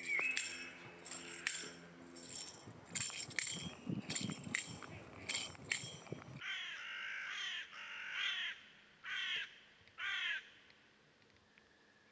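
Music with a steady tambourine beat that cuts off about six seconds in, followed by a crow cawing five times, about a second apart.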